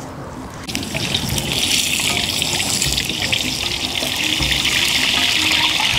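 Fish frying in a pan of hot oil over a wood fire: a steady sizzle that starts about a second in as the fish goes into the oil, with fine crackling all through it.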